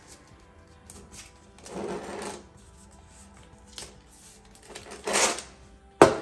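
Masking tape pulled off the roll and wrapped round a bundle of metal stair rods: two rasps of about half a second, one about two seconds in and one about five seconds in, with small clicks between. Just before the end the rod bundle knocks sharply against the floor as it is stood upright.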